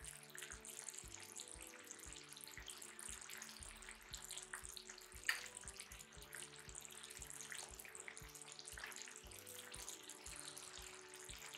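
Cream sauce bubbling and crackling softly in a frying pan while a spoon ladles it over chicken breasts, with one sharper click about five seconds in.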